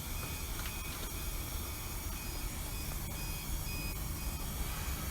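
Ventilation fans running steadily with a low rumble and hiss, joined in the second half by a repeating electronic beep about twice a second.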